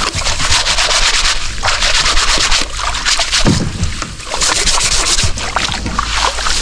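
Rapid rattling, scraping and splashing of a fish trap and water being handled in a small boat.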